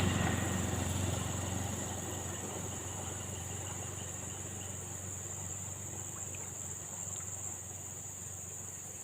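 Steady high-pitched trill of insects. A low rumble fades away over the first couple of seconds.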